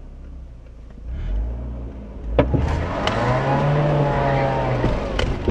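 Mercedes car engine revving up from idle under throttle as the car accelerates to snatch a stuck car out with a kinetic recovery rope. A sharp knock comes about two and a half seconds in, the engine note rises and falls, and several sharp knocks follow near the end.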